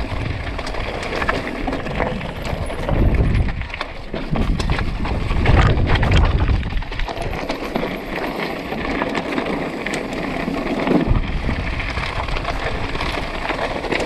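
Wind buffeting the microphone in gusts, over the crunch and rattle of a mountain bike's tyres rolling across loose rock.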